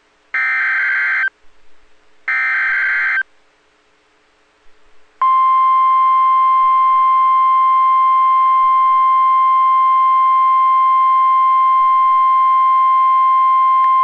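NOAA Weather Radio emergency alert: two roughly one-second bursts of SAME digital header data, a harsh warbling screech, then after a two-second gap the steady single-pitch 1050 Hz warning alarm tone held for about nine seconds. Together they open a tornado warning broadcast and trigger alert receivers.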